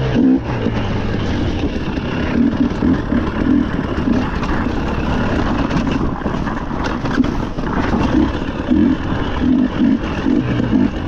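Rally car engine revving hard, its note swelling and dropping again and again, over a steady rushing noise.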